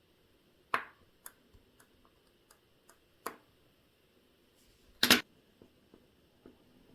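Sharp small clicks and taps of a watchmaker's tools and parts on the workbench: a click under a second in, lighter ticks after it, another click just after three seconds, and the loudest, a quick double knock, around five seconds.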